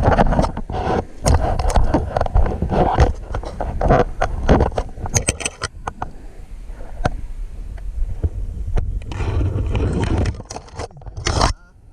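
Irregular rustling and scraping of a player moving on foot, with gear or vegetation brushing close to the microphone and a quick cluster of sharp clicks about five seconds in.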